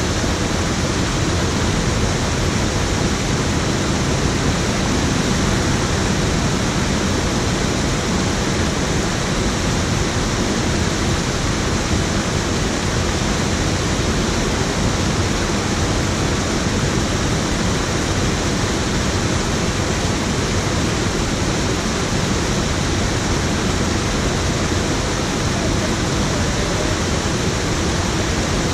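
Water pouring over a low weir into a pool, a steady, unbroken rushing.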